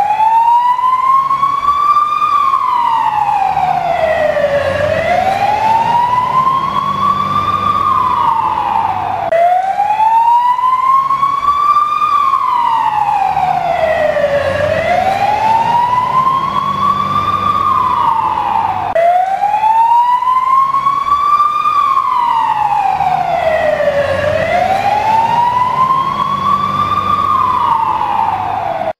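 Fire engine siren wailing. It glides slowly up and down in pitch, about one rise and fall every five seconds, over a low rumble.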